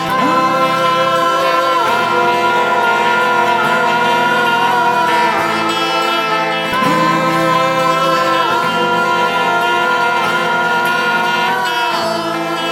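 Music: a song passage with guitar and long held chords.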